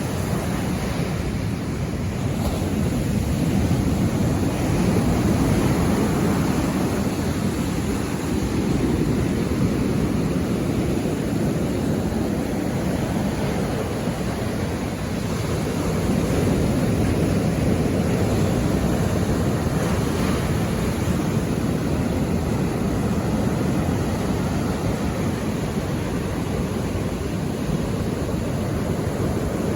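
Ocean surf washing onto the shore in a continuous rush, swelling and easing slowly every few seconds.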